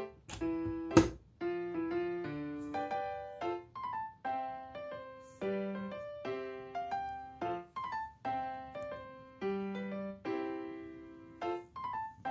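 Gentle background piano music. About a second in comes a sharp click, the loudest sound, just after a fainter one, as a plug-in diffuser is handled at the wall socket.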